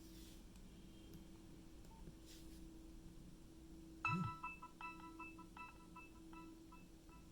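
Nokia 6030 mobile phone ringtone from the handset's small speaker: after a few seconds of near quiet with a faint hum, a pattern of short, evenly repeated beeping notes starts about four seconds in, with a soft thump as it begins.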